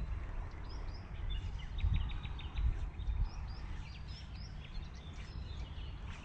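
Small birds chirping over a low, steady outdoor rumble, with a brief run of quick high ticks about a second and a half in.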